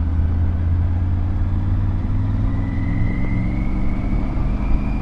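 Triumph Tiger 900 GT Pro's three-cylinder engine running on the move, a steady drone whose pitch creeps up over the last couple of seconds as the bike gathers speed, with wind rumble on the microphone beneath it.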